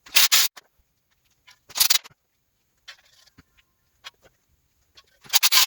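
A ratchet running flex plate bolts into a small-block Chevy 350's crankshaft: two short bursts of rapid clicking, then a quicker run of clicks near the end.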